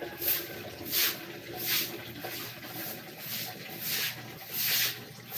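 A run of rubbing strokes, about three every two seconds, each a short swish, over a faint steady hum.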